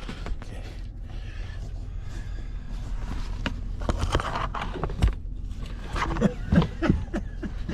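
Clicks and light rustling of cables and plugs being handled inside a truck cab, over a steady low rumble of the vehicle. A few brief muttered sounds come near the end.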